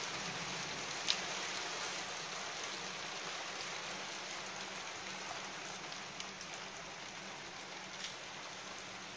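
Storm rain and hailstones hitting the building: a steady hiss with scattered sharp ticks of hail, the loudest about a second in.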